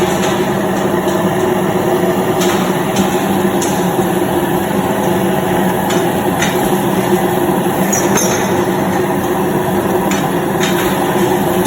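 Automatic forging line running: a loud, steady machine hum with a few short metallic knocks and clinks at irregular intervals.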